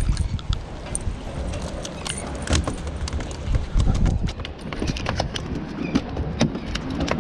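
Irregular knocks and taps as a landed bluefish is swung over the pier rail and flops against the wooden deck boards, over a steady low rumble.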